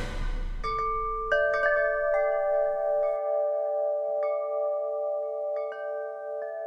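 Chimes struck one after another at uneven intervals, about eight strikes, each ringing on and overlapping the others with a slight pulsing. The low rumble of a drum hit dies away under the first few strikes.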